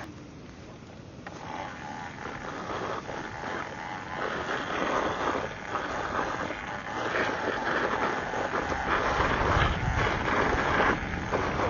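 Electric dirt bike riding a long wheelie across pavement. The motor and tyre noise start about a second in and build steadily as it gathers speed, with a low rush of wind on the microphone growing in the last few seconds.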